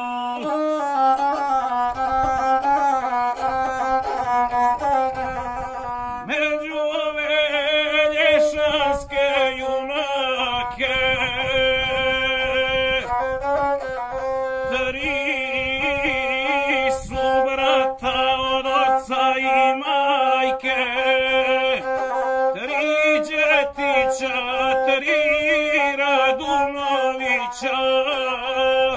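Gusle, the single-string bowed folk fiddle, bowed in a continuous ornamented melody, with a man singing an epic song over it.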